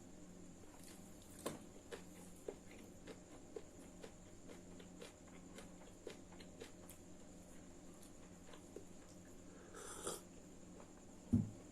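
Close-miked eating: scattered small clicks and smacks of chewing, with a short louder noise about ten seconds in and a low thump just before the end, over a faint steady hum.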